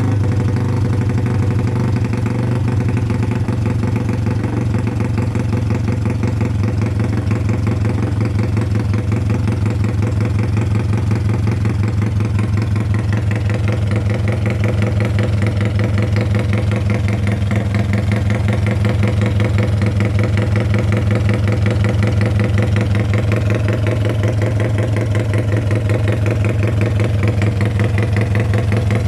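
Carbureted motorcycle engine built up with a 56 mm piston, idling steadily with a panting, loping beat.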